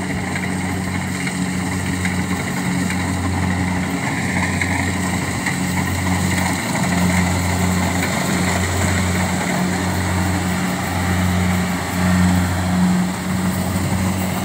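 Kubota rice combine harvester's diesel engine running steadily under load while the machine cuts and threshes rice, a constant low hum with the whir and rattle of the threshing machinery over it.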